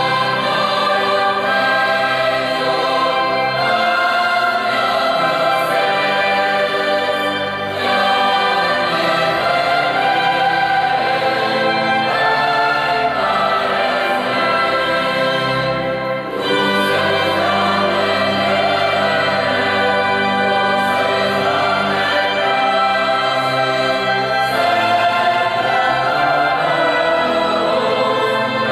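Choir singing a hymn in long, sustained phrases, with a short break about a quarter of the way in and another just past halfway.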